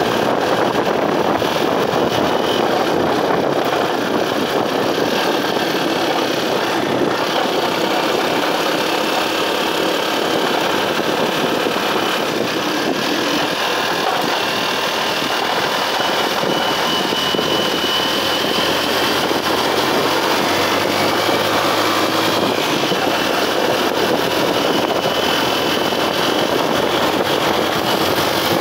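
Motorcycle under way, its engine running steadily with wind rushing over the rider's microphone.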